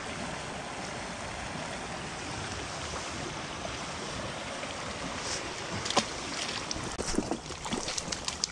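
Steady rush of a small creek's flowing water. From about six seconds in, a few short sharp clicks and rustles of handling stand out over it.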